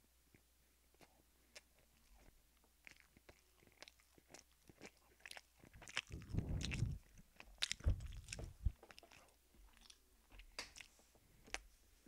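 Close-miked chewing and biting of food, with many small wet mouth clicks and crunches. A louder run of low thuds comes about six to eight seconds in.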